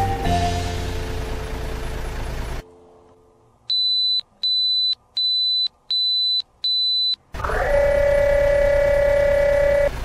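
Dubbed-in truck sound effects. First a low engine rumble with a few falling musical notes, then after a near-silent gap five electronic reversing beeps, each about half a second long. Near the end a rising mechanical whine levels off into a steady hum over the engine rumble as the dump bed lifts.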